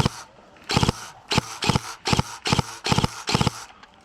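Footsteps crunching close to the microphone at a brisk, uneven pace, about nine steps.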